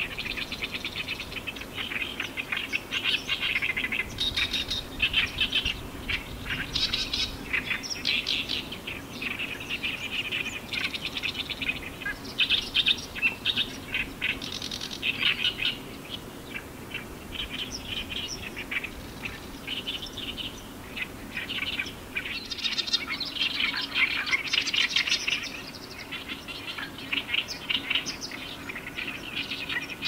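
Oriental reed warblers singing: rapid, chattering song phrases repeated almost without a break.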